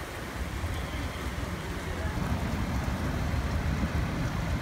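Heavy rain falling on pavement, with a box truck's engine rumble growing louder from about two seconds in as the truck drives past close by.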